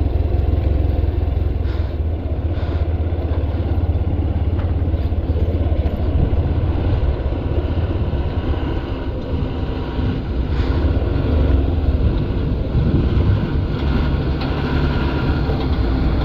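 Motorcycle engine running steadily at low speed over a rough dirt track, with a constant low rumble. Oncoming dump trucks' engines grow louder near the end.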